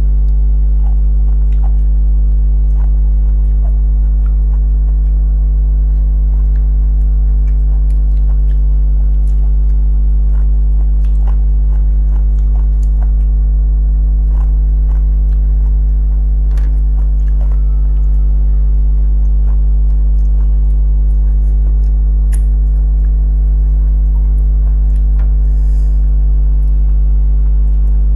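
Loud, steady mains hum with its overtones, under close-up eating sounds: scattered soft clicks and smacks of chewing and of fingers lifting food to the mouth.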